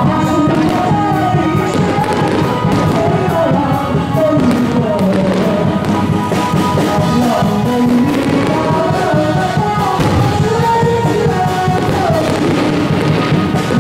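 Music with a melody runs throughout, with firework bursts popping under it now and then.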